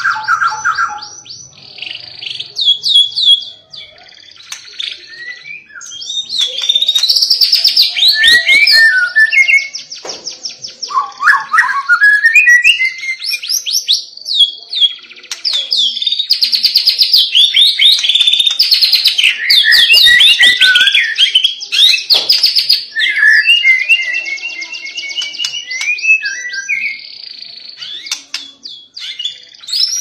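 White-rumped shama singing a loud, insistent, nearly continuous song of rapid rattling trills and sweeping whistled phrases, with a brief lull about 4 to 6 seconds in.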